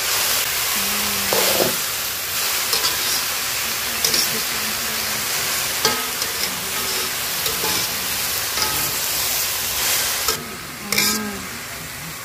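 Bean sprouts and mustard greens sizzling in a hot aluminium wok while a metal spatula stirs them, with occasional sharp clacks and scrapes of the spatula on the pan. About ten seconds in, the sizzle drops away and only a few scrapes remain.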